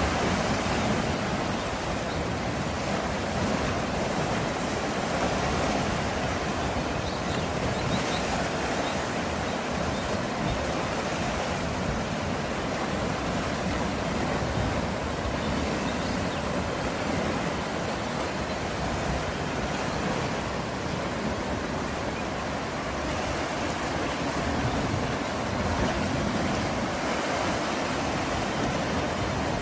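Sea surf washing steadily against a rocky volcanic shore, an unbroken rush of breaking waves.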